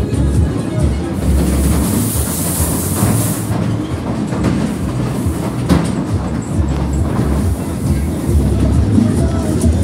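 Fairground ghost-train cars rumbling and clattering along their track, with a hiss lasting about two seconds near the start.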